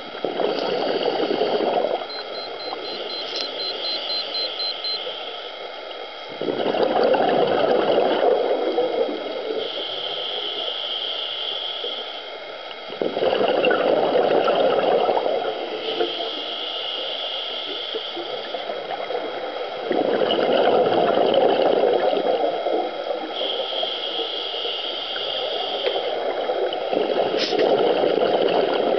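Scuba diver breathing underwater through a regulator. A higher hiss on each inhale alternates with a louder gurgling rush of exhaled bubbles, about one breath every seven seconds.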